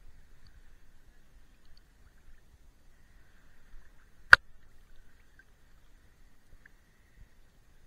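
Faint, muffled low rumble of calm sea water moving against a camera held at the surface, with a single sharp click about four seconds in.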